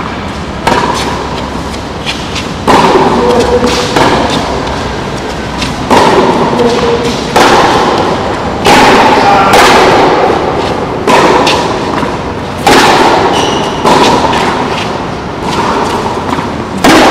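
Tennis balls struck by rackets and bouncing on a hard court during a baseline rally: about ten sharp knocks, one every one to two seconds, each ringing on in the echoing covered hall.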